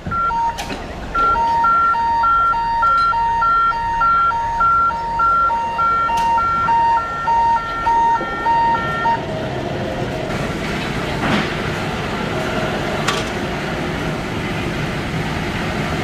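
Crane hoist's warning beeper sounding an alternating high-low two-tone signal, a little under two pairs a second, while the crane lifts a load; it stops about nine seconds in. Hoist machinery and harbour noise go on underneath, with two sharp knocks in the second half.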